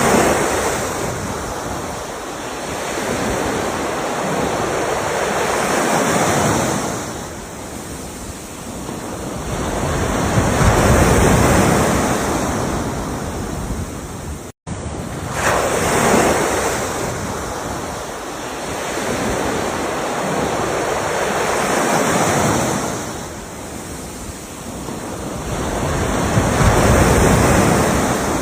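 Ocean waves breaking and washing up, the surf rising and falling in slow surges every five seconds or so. There is a brief dropout about halfway through.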